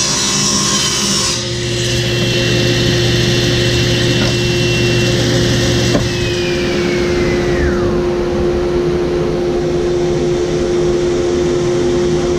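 Workshop machine motor running steadily, with a high whine that falls smoothly in pitch from about six seconds in, as something spins down, while a low hum carries on.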